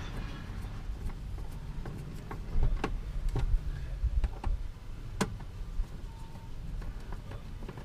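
Scattered sharp clicks and taps from parts being handled and fitted by hand, the loudest about five seconds in, over a low rumble that swells in the middle.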